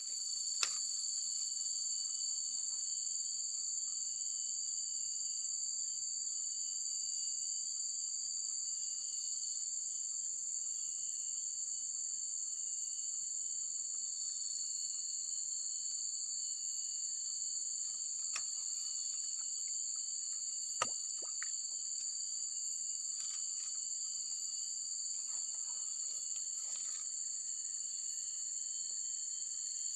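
Steady high-pitched insect chorus, two constant pitches droning on without a break, with a sharp click about twenty seconds in.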